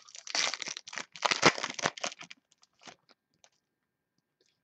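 Foil wrapper of a trading-card pack being torn open and crinkled, a dense crackle for about two seconds that thins to a few faint ticks.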